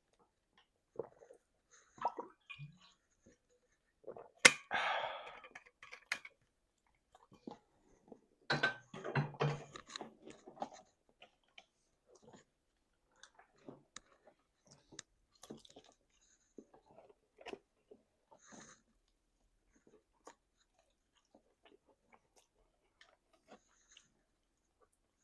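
Chewing chicken wings, with scattered small clicks and two louder stretches of eating noise, about four and a half and nine seconds in.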